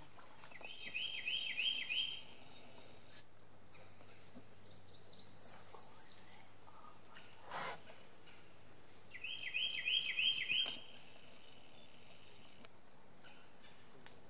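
Songbird singing a fast, repeated whistled phrase of about five notes, heard twice: about a second in and again about nine seconds in. Fainter bird calls come between the two phrases, over steady background noise.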